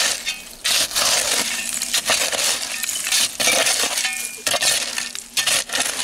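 A steel shovel scraping and chopping into dirt full of broken glass and pottery shards, with glass clinking, in repeated strokes about a second apart.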